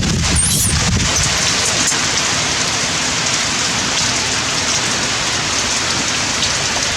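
Steady rain falling on surfaces, a dense even hiss.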